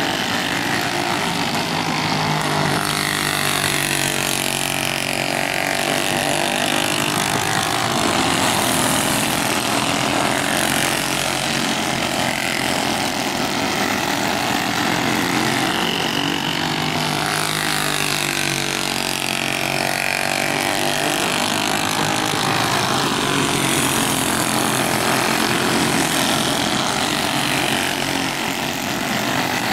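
Racing go-kart engines running hard as the karts lap the track. Their pitch rises and falls in repeated swells as they go around and pass by.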